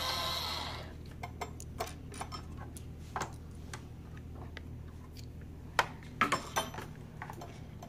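Music fading out in the first second, then scattered light clicks and taps of a plastic toy crayon carver being handled, with a few louder knocks about six seconds in, over a low steady hum.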